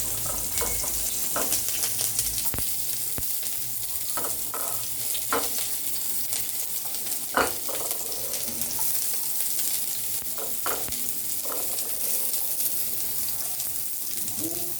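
Chopped garlic and onions sizzling in a little hot oil in a pan as they are stirred, with scrapes and knocks against the pan every second or two; the loudest knock comes about seven seconds in.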